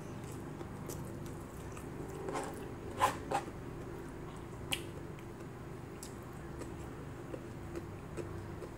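Close mouth sounds of a person eating rice and fish by hand: wet chewing and smacking, with a few sharp clicks a little after two seconds in, loudest about three seconds in, and again near five seconds, over a steady low hum.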